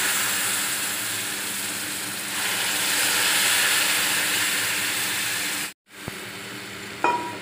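Hot sugar water hitting semolina roasted in ghee in an aluminium pot, hissing loudly as it throws up steam; the hiss swells again about two and a half seconds in, then breaks off suddenly. After that a quieter steady hiss follows, with a short metallic clink near the end.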